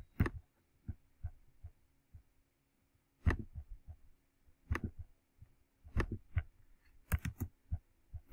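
Computer mouse clicking as a screenshot is snipped and pasted: a handful of sharp, separate clicks a second or more apart, two in quick succession near the end, over a faint steady hum.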